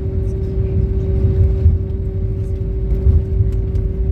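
Airliner cabin noise in flight: a steady low rumble with a constant hum from the jet engines and air system.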